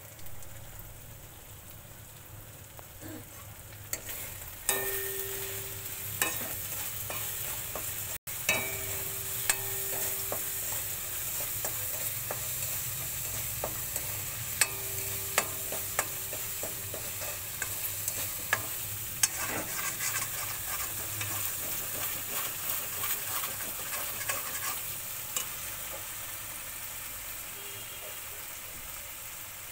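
Ground spices sizzling in hot oil in a metal kadai while a metal spoon stirs and scrapes, with frequent sharp clinks of the spoon on the pan and brief ringing from the pan. The sizzle grows louder about five seconds in, when the stirring starts in earnest.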